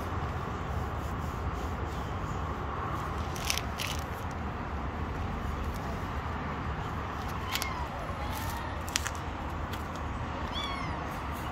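Steady outdoor street background with a low hum of traffic, broken by a few faint clicks and, near the end, a quick run of short high chirps falling in pitch.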